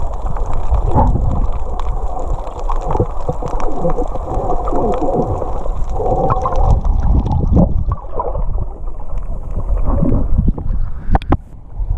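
Water gurgling and sloshing around a snorkeller, heard muffled with little treble, with a few sharp clicks near the end.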